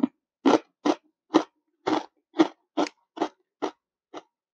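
A person chewing a mouthful of Thai curry ridged potato chips: a steady run of crisp crunches, a little over two a second, getting weaker near the end.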